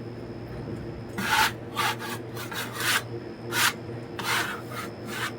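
A portable sawmill's engine runs with a steady low hum. About a second in, a series of about seven short, rasping scrapes of wood and bark start, each well under half a second.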